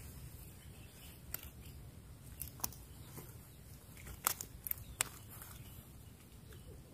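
Quiet handling noises: about half a dozen short, sharp clicks with faint rustling as an angler handles a freshly caught small snakehead and his tackle, over a low, steady background noise.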